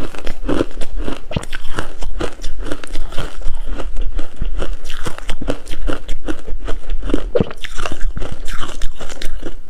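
Coarse-grained crunchy ice being bitten and chewed close to the microphone: a continuous run of loud, sharp crunches, several a second.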